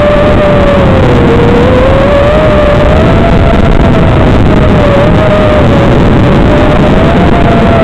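FPV quadcopter's motors and propellers heard through the onboard microphone over the analog video link, buried in loud constant hiss. A whine wanders up and down in pitch throughout.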